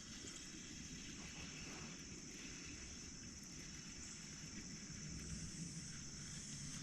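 Faint open-air ambience on a river: a low, uneven rumble with a steady high hiss over it, and no distinct event.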